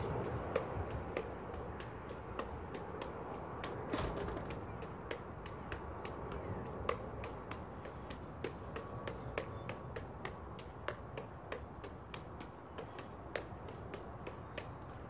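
Five juggling clubs caught one after another in a five-club cascade: a quick, even run of sharp slaps as each club's handle smacks into the juggler's palms.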